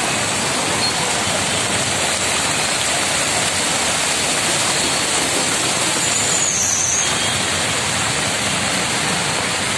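Heavy rain pouring down in a loud, steady hiss. A brief high gliding tone sounds faintly about six and a half seconds in.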